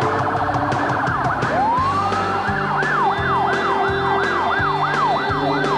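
Electronic police siren: a fast warble, then one rising sweep about one and a half seconds in, then a quick up-and-down yelp of two to three cycles a second. A low pulsing beat runs underneath.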